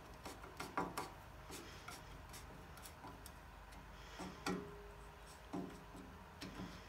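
Irregular small clicks and taps of a long screwdriver working at the handle fittings of a two-man crosscut saw blade held in a vise, with a short steady ringing tone for about a second past the middle.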